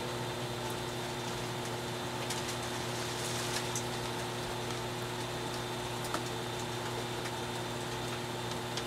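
Skutt Prodigy electric pottery wheel running at a steady speed with a constant motor hum, a few faint clicks over it.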